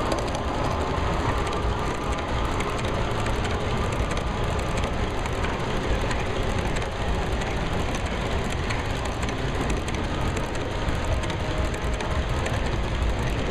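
Garden-railway model freight cars rolling steadily past on the track: a continuous rumble of many wheels on the rails with a dense, rapid clicking over it.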